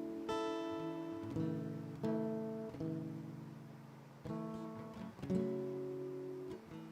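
Acoustic guitar strumming slow chords, each left to ring before the next strum, as soft accompaniment to worship music.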